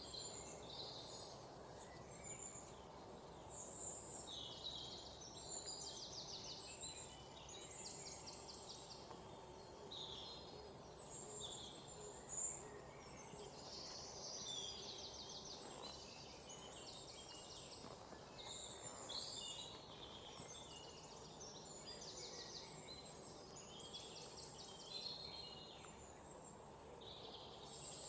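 Several songbirds chirping and trilling, short calls and rapid trills overlapping throughout, over a low steady background hiss. One brief louder note stands out about twelve seconds in.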